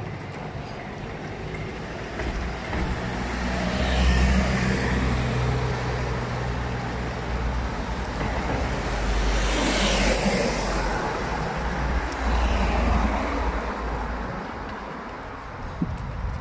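Street traffic: vehicles pass by three times, the loudest about ten seconds in, over a steady low rumble.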